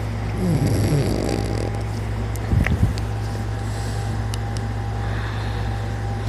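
A man's unusual snoring: one drawn-out snore about half a second in, then a short, louder low snore a little after two and a half seconds, over a steady low hum.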